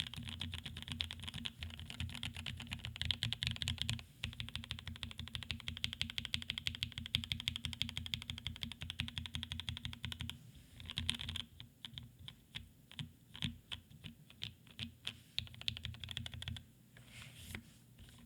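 Typing on a NEO Keys Palette G67 custom mechanical keyboard with lubed Gateron Black Ink v2 linear switches on a carbon fiber plate in a stacked acrylic case. It opens as a fast, dense stream of keystrokes, with a short break about four seconds in. The run stops about ten seconds in and gives way to slower, separate key presses that thin out near the end.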